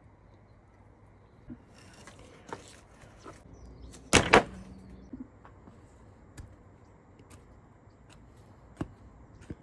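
Raw lamb shoulder dropped onto a wooden chopping board: one heavy thud with a second hit right after, about four seconds in. A few faint clicks and rustles before and after.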